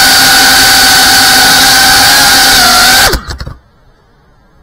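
FPV racing drone's motors and propellers whining steadily, heard from the drone's own camera. About three seconds in, the pitch falls sharply and the sound cuts off as the motors spin down on landing.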